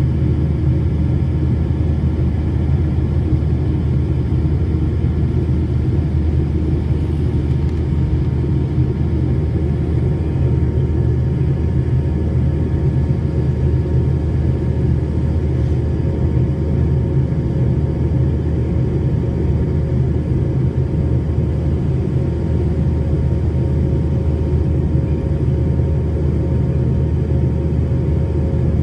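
Cabin noise of a McDonnell Douglas MD-90 airliner in its climb after takeoff: a steady, loud low rumble of airflow and the rear-mounted IAE V2500 turbofan engines, heard from inside the cabin, with faint steady whines above it.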